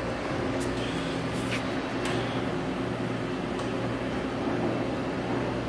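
Steady machinery hum with a few faint clicks and taps, the kind of sound made by a machine tool or a shop left under power.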